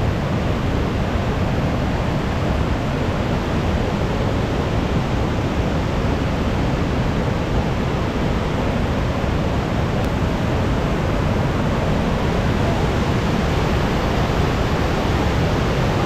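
Waterfall rushing: a steady, loud wash of falling water with no change through the stretch.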